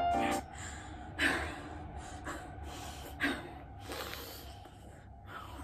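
A woman breathing heavily: four short, noisy out-breaths about a second apart, with no words.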